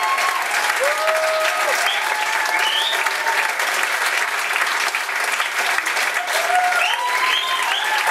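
Audience applauding steadily, with scattered cheers and shouts from the crowd.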